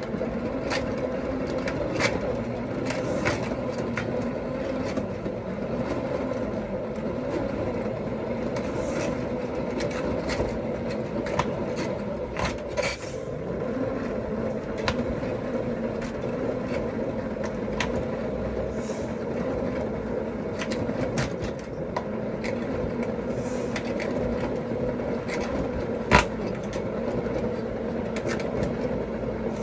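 Spin dryer of a mini manual washing machine spinning a load of wet clothes: a steady motor hum with scattered clicks and rattles, and one sharp knock near the end.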